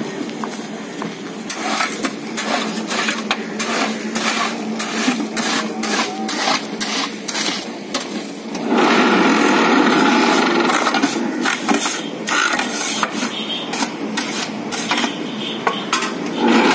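Mobile hollow concrete block making machine at work: a run of quick, uneven metallic clatters and scraping as coarse concrete mix is worked into the mould. About nine seconds in comes a louder continuous rattle lasting a couple of seconds.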